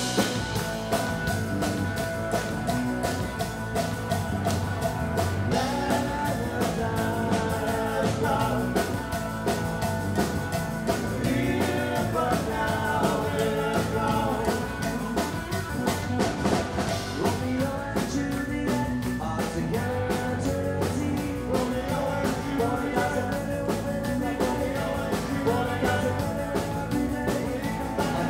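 Live rock band playing a song, with electric guitars, a drum kit keeping a steady beat, and a male singer.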